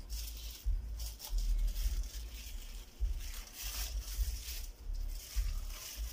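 Plastic sheet crinkling and rustling in several short spells as a thin raw dough tortilla is peeled off it by hand, over a steady low hum.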